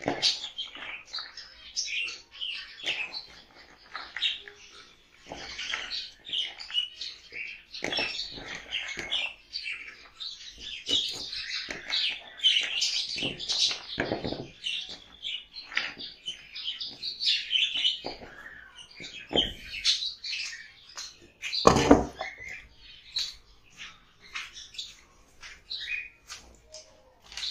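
A flock of caged Java sparrows chirping, with many short high chirps overlapping throughout. Several knocks break in, the loudest about three-quarters of the way through.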